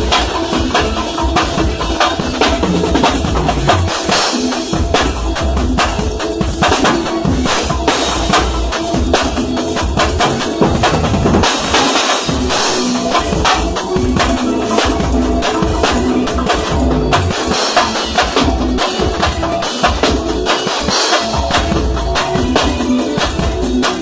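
Drum kit and timbal playing a fast, continuous percussion groove together, with dense, rapid strokes and no pause.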